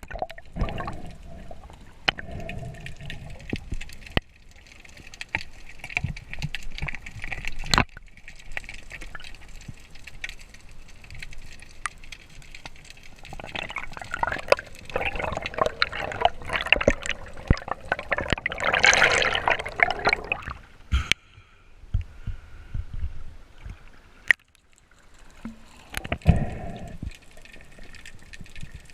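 Sea water sloshing and gurgling around a camera in the sea during spearfishing, with scattered sharp clicks and knocks. About halfway through comes a louder, longer rush of bubbling, churning water.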